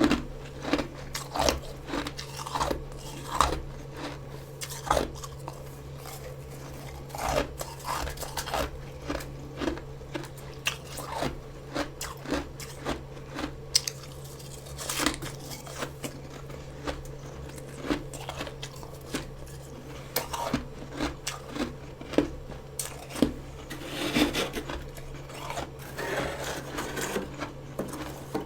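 Close-up chewing of freezer frost: a steady run of crisp crunches, about two a second, growing denser near the end, over a constant low hum.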